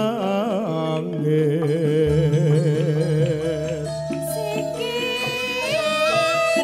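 Javanese gamelan music with a wavering, ornamented vocal line. A female sinden's voice comes in about four seconds in.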